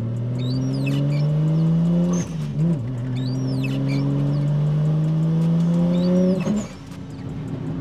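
Turbocharged RB25 straight-six of an R34 Skyline accelerating hard under load, heard from inside the cabin: the revs climb, dip briefly at a gear change about two seconds in, climb again, then drop off sharply near the end. The boosted pull still shows the misfire under full boost that the new coil packs were meant to cure.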